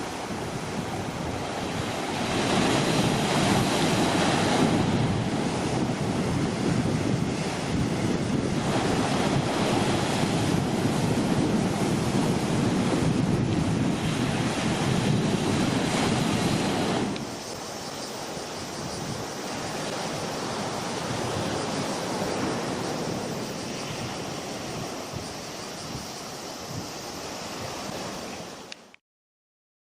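Rough sea surf from a typhoon swell, waves surging and breaking, with wind buffeting the microphone. It grows louder about two seconds in, drops suddenly to a lower level about seventeen seconds in, and cuts off just before the end.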